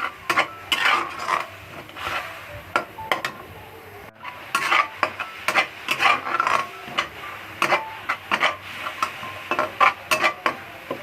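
A spatula scraping around a wok in quick, irregular strokes, stirring blended spice paste while its water cooks down, with a short pause about four seconds in.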